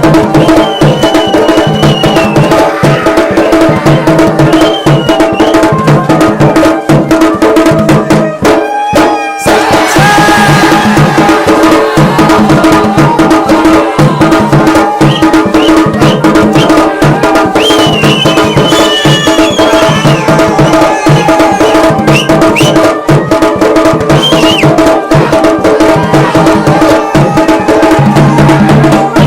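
Garhwali dhol and damau drums playing a fast, dense rhythm over a steady held tone and a higher melody line, with a brief break about nine seconds in.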